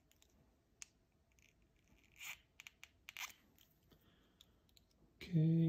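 Blade slicing lengthwise down a small anti-vibration tube: faint, scattered crunching and scraping cuts, strongest about two and three seconds in.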